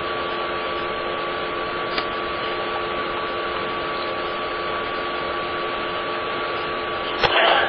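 Steady background noise of a tennis arena crowd between points, with a constant hum of several steady tones from the old broadcast recording. There is a single click about two seconds in and a short louder burst near the end.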